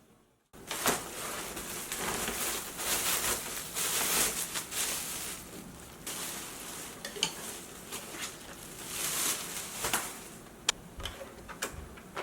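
Packaging rustling and crinkling as the box contents are handled, with scattered clicks and light knocks.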